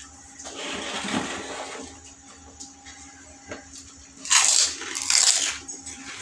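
Crunching as crisp phuchka (pani puri) shells are bitten and chewed, with two louder crunchy bursts about four and five seconds in.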